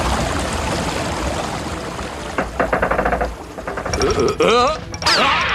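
Water gushing out of a freshly opened wooden sluice gate and pouring onto the paddles of a water wheel. About two and a half seconds in there is a rapid rattle for about a second. In the last second and a half, pitched sounds wobble up and down and then slide downward.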